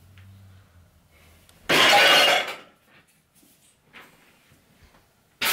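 Glass shattering: one crash about two seconds in, lasting under a second with a brief ringing tail.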